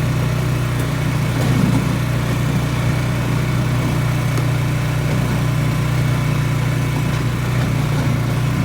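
Polaris Sportsman 570 ATV's single-cylinder engine running at a steady, even pitch.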